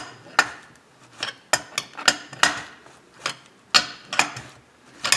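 Hand ratchet clicking in short irregular runs, about two sharp metallic clicks a second, as it turns bolts on a Farmertec 372 chainsaw crankcase.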